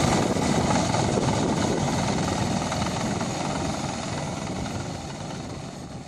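Engine of a KC-3M crawler rotavator (tracked rotary tiller) running steadily under load while tilling a flooded rice paddy, fading out gradually toward the end.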